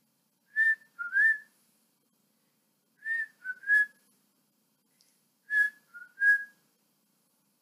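A woman whistling bird-like chirps, imitating a bird's tweet: three bursts of two or three short whistled notes, about two and a half seconds apart.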